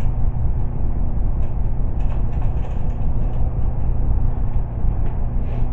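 Steady low mechanical hum, with a few faint light clicks about two to three seconds in as the mower's handle bolts are threaded on by hand.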